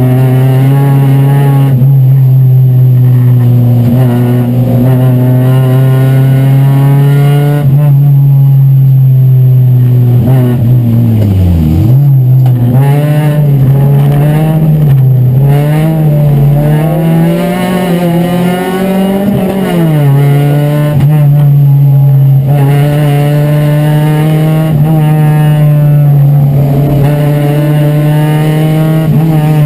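Chevrolet Chevy race car's four-cylinder engine, heard from inside the cockpit, running at high revs on a steady note for long stretches. About eleven seconds in the revs drop sharply and climb back, then rise and fall for several seconds before settling on a steady note again.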